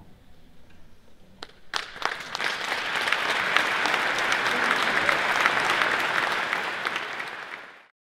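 Audience applauding at the end of a children's string orchestra piece: a couple of single claps, then full applause from about two seconds in, fading out near the end.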